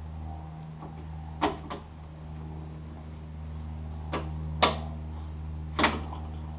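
New outer tailgate belt weatherstrip on a first-generation Toyota 4Runner being pressed by hand onto its plastic clips: five short, sharp clicks and snaps as it seats, the loudest about two thirds of the way in. A steady low hum runs underneath.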